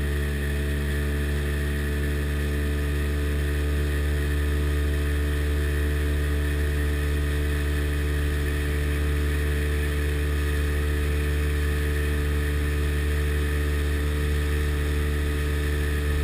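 Sea Ray Sea Rayder jet boat's two-stroke engine running at a steady, even pitch as the boat cruises at an easy speed. The engine has fresh spark plugs and cleaned carburettors.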